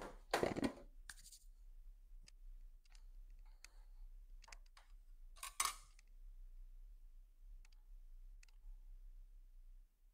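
Quiet handling noises: a short rustling clatter just after the start and a brief rustle a little past halfway, with faint clicks and scrapes between. These come as the plastic dough containers are put aside and the bulk pizza dough is uncovered and pulled out on the bench.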